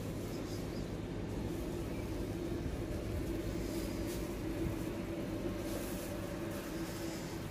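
Steady low hum and rumble of a supermarket's background noise, with a faint steady tone held throughout.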